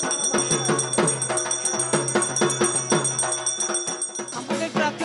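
Background music: a quick, steady drum beat under high, bell-like ringing tones. About four seconds in the ringing stops and a new melodic part begins.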